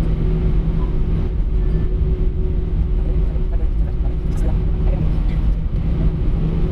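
Airbus A319 cabin noise on the ground after landing: a steady low rumble with a constant hum from the engines and air systems, and faint passenger voices in the background.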